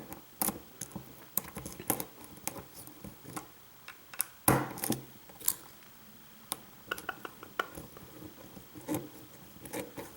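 Lock pick and tension bar working the pins of a pin-tumbler lock: small, irregular metallic clicks and ticks, the loudest about four and a half seconds in.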